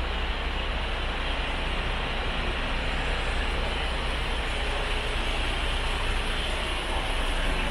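MAN TGX 26.440 tractor unit's turbo common-rail diesel engine idling with a steady low rumble.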